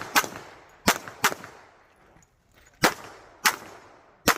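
Pistol shots at a practical-shooting match: six sharp cracks, mostly in quick pairs, each followed by a short echo, with a pause of about a second and a half in the middle.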